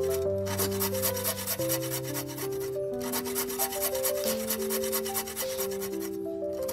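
A thin-bladed hand saw cutting a kerf into a softwood block, in quick, even back-and-forth rasping strokes. Background music with slow, held notes plays underneath.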